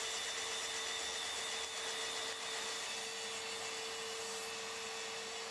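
A steady motor hum with an even hiss, holding one pitch throughout with no strokes or knocks.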